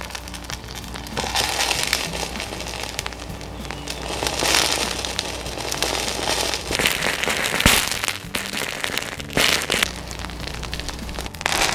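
Magnesium block burning under dry ice, crackling with many sharp pops and several louder surges of sputtering. The metal keeps burning by stripping the oxygen from the carbon dioxide, so the dry ice does not put it out.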